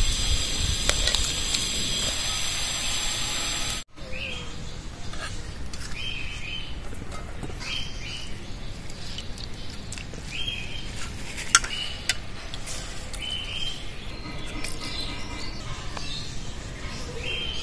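Boiled potatoes being squished and mashed by hand on a steel plate for about four seconds, then a sudden cut to a bird repeating a short chirp every one to two seconds, with a couple of light clicks of steel dishware.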